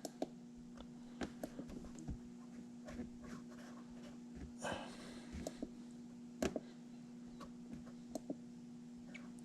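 Scattered faint clicks of buttons being pressed on an HVAC control board while stepping through its configuration menu, with a brief rustle about halfway through, over a steady low electrical hum.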